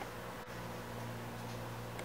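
Room tone: a steady low hum under a faint even hiss, with no distinct event.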